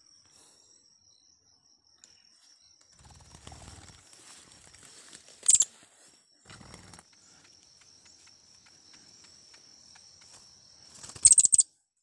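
Philippine hanging parrots (colasisi) giving shrill, very high-pitched calls: one short call about five and a half seconds in, and a quick run of three or four near the end.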